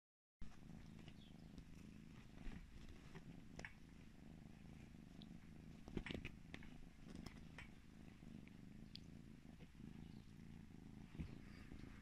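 A kitten purring faintly and steadily while it plays, with small scattered clicks and rustles from its play, the clearest about six seconds in.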